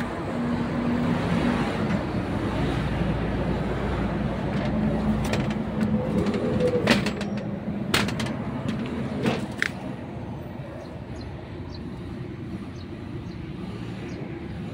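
A heavy truck's diesel engine idling with a steady low hum, louder in the first few seconds. Several sharp clicks or knocks come around the middle.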